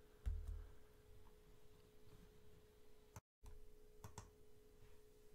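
Near silence: faint room tone with a steady low hum, a soft low thump about a quarter second in and a few faint clicks. The sound cuts out completely for a moment a little after three seconds in.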